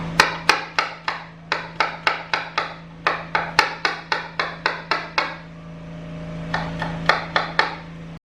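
Knife chopping peeled garlic cloves finely on a cutting board: quick, even knocks of the blade on the board, about three to four a second, a short pause, then a few more strokes before the sound cuts off suddenly near the end.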